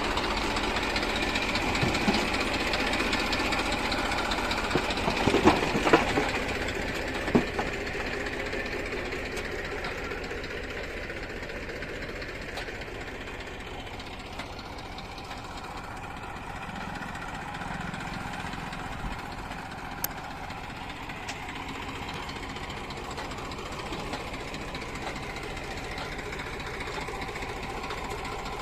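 Heavy diesel machinery engine running steadily, louder at first and easing off after about eight seconds, with a few sharp metallic knocks around six seconds in.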